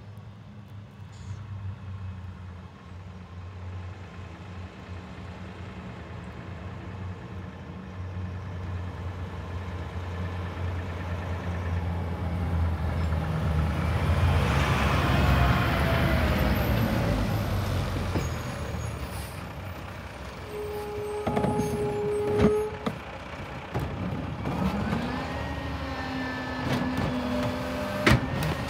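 Mack Granite rear-loader garbage truck's diesel engine approaching and passing close, growing louder to a peak about halfway through. It then stops with a brief steady squeal and knocks, and near the end the engine rises with a climbing hydraulic whine as the cart tipper lifts and dumps a cart into the hopper.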